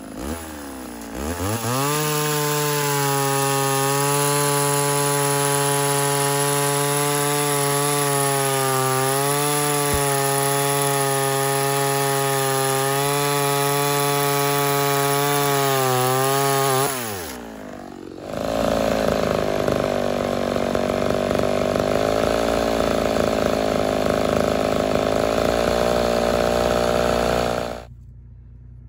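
Homelite Super XL Auto two-stroke chainsaw, mildly ported and fitted with a bow bar, running at full throttle while cutting through a log. The engine dips and picks up again just after the start. Past the middle it winds down, then runs hard again in another cut. Near the end the sound drops sharply to a low rumble.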